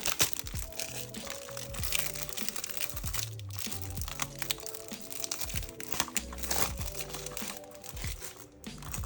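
Background music with a steady beat, over the crinkling of plastic packaging being handled.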